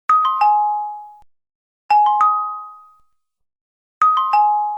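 An electronic three-note chime stepping down in pitch, played three times about two seconds apart. Each note rings and fades over about a second. It is a computer test sound for checking the repaired headphones.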